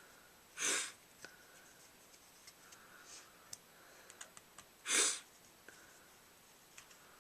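A person sniffing sharply twice, about four seconds apart, with faint scattered clicks and taps of small parts being handled in between.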